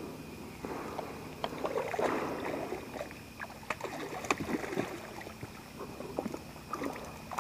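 Water splashing and sloshing in irregular bursts, with scattered sharp clicks and rustling, as a hooked brown bullhead is brought in and handled at the water's edge.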